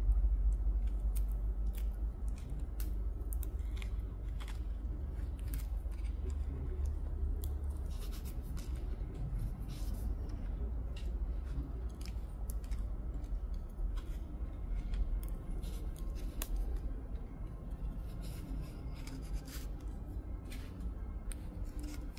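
Bonsai shears snipping twigs off a small juniper: many short, sharp clicks at irregular intervals, over a low rumble of handling.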